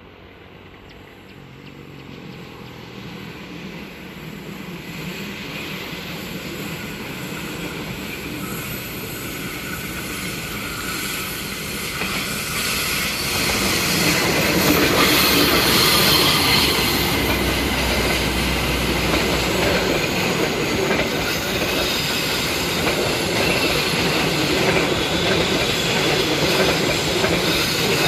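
Argo Wilis passenger train, led by a diesel locomotive, running downhill through the station. The noise of the locomotive and the wheels on the rails grows steadily louder for the first half, then stays loud as the train passes.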